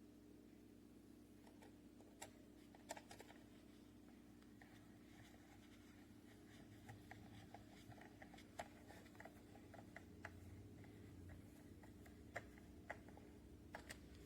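Near silence with faint, scattered light clicks and taps of small parts being handled, most likely the battery cover and its small screw being refitted on a toy RC wheel loader. A faint steady hum lies underneath.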